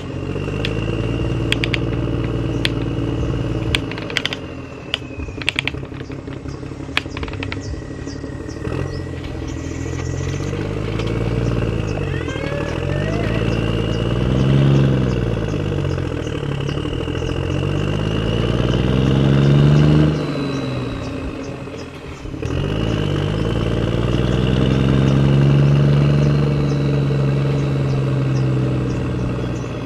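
A vehicle motor running, its pitch rising and falling several times as it revs up and eases off, with sharp clicks and knocks during the first few seconds.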